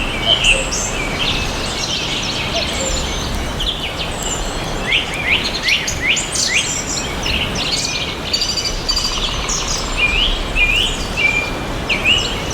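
Several songbirds chirping and singing in a forest over a steady background hiss, with a dense run of quick, sweeping chirps about halfway through.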